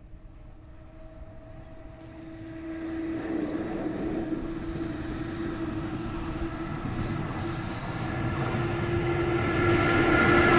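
JR Freight EF66 electric locomotive hauling container wagons approaches, growing steadily louder. It carries a steady humming tone, and a higher whine joins near the end as it draws close.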